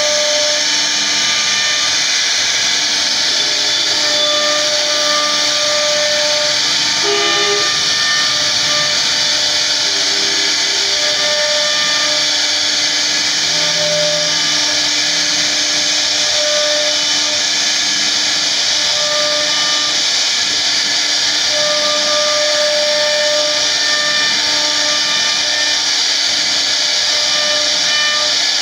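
CNC router spindle carving a relief into a solid wood door panel: a loud, steady high whir and hiss from the spinning bit cutting wood, with short tones coming and going every second or two.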